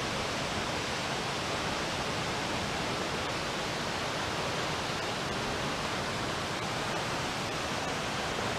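Steady rushing roar of Waimoku Falls, a 400-foot waterfall running a little above its normal flow.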